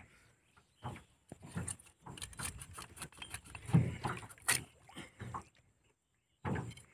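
Scattered knocks, taps and clicks of a catch being handled on a wooden boat: a sickle-type knife blade working at a caught eel's head against a bamboo line stick, with a low thud and a sharp click about four seconds in.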